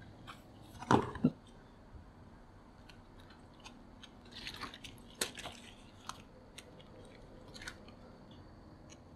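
A dachshund puppy mouthing and biting at a soft silicone keyboard cover, with light crinkling, scattered small clicks and chewing sounds. Two sharp thumps come about a second in.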